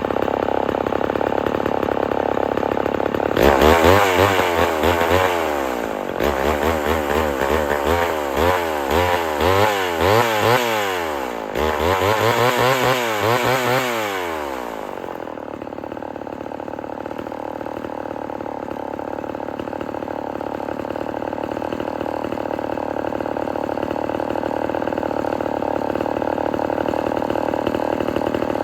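Homelite XL-12 54 cc chainsaw with a 24-inch bar idling, then opened to full throttle about three and a half seconds in for a single cut through a log. The engine pitch repeatedly sags and recovers under load for about eleven seconds before it drops back to a steady idle.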